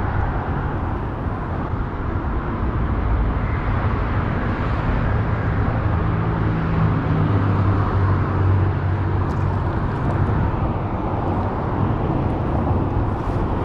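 Highway traffic on the road bridge overhead: a steady rumble and hiss of passing vehicles, with the low drone swelling around the middle as a heavier vehicle goes by.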